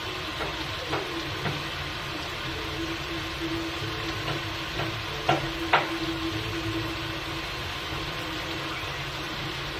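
Prawns shallow-frying in hot oil in a kadai: a steady sizzle with a few sharp pops of spattering oil, the two loudest about halfway through. A steady low hum runs underneath.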